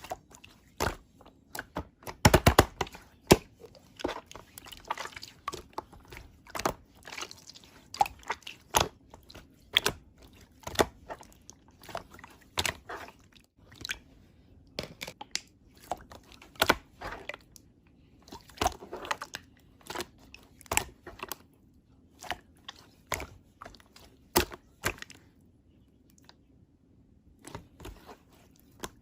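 Slime being pressed and kneaded by hand, giving an irregular run of crackling pops and clicks with a few seconds of quiet near the end.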